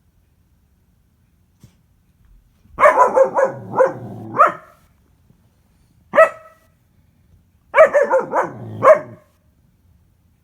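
German Shepherd puppy barking in three bouts, starting about three seconds in: a quick run of about five barks, a single bark, then another run of about five.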